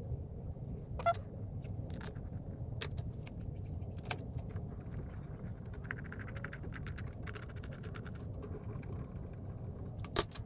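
Light metallic clicks and clinks of small bolts and washers being handled and fitted to the top cover of a VW Beetle steering box, a few sharp ones scattered through, over a steady low hum.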